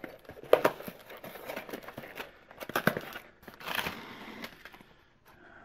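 A hobby knife slitting the packing tape on a cardboard box, then the cardboard flaps being pulled open and a plastic bag crinkling as it is lifted out near the end. Irregular scrapes and rustles, with a sharp click about half a second in.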